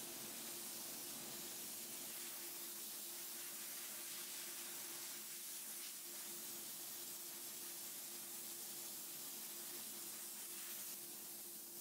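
Small soda blasting unit fed by compressed air, hissing steadily as it sprays baking soda at a wooden nightstand to strip its finish, with a low steady hum underneath.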